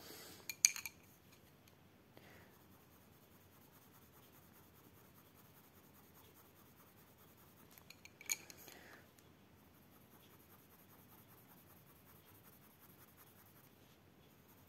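Arteza wax-based coloured pencil scratching faintly on sketch-pad paper while colour is laid down. There are sharp clicks of pencils being handled about half a second in and again around eight seconds in.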